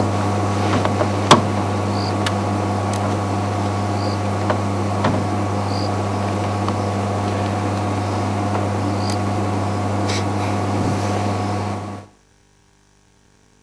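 A steady low hum with a few sharp clicks and several faint, short high chirps. It cuts off suddenly about twelve seconds in.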